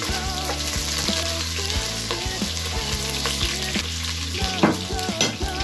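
Chopped onions sizzling as they fry in hot oil in a stainless steel pot, pushed in off a plate with a wooden spoon at the start, with a couple of sharp knocks near the end. Background music plays underneath.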